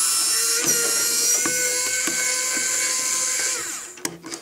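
Power drill running steadily in reverse, backing screws out of freshly tapped servo mounting holes in wood. The motor whine falls in pitch and stops about three and a half seconds in, followed by a few small clicks.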